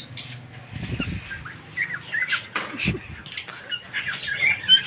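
Many caged parakeets chirping and squawking, short sharp calls overlapping one another, with two dull low thumps about one and three seconds in.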